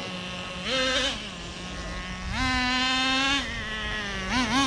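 Traxxas Nitro Rustler's small two-stroke nitro engine idling with a steady buzz, its pitch stepping up under brief throttle blips: once about a second in, a longer one in the middle, and two quick blips near the end. The steady idle between blips is the sign of a well-tuned engine, as the owner judges it.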